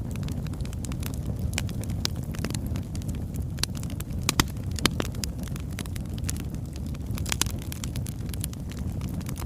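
Wood fire burning logs: a steady low rumble of flames with scattered sharp crackles and pops, a few louder pops around the middle and again later on.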